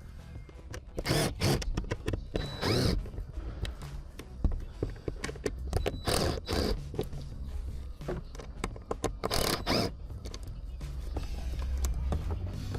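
Plastic dashboard trim and wiring connectors being handled and pulled apart: short scrapes and rattles in three clusters, about one second in, about six seconds in, and near nine seconds.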